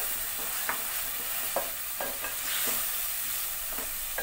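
Soaked moong dal frying in hot oil in a metal pot: a steady sizzle, with a wooden spatula scraping and stirring through it about once every second.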